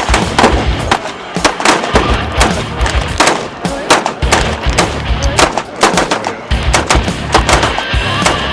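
Rapid gunshots, several a second, over background music with a steady bass beat.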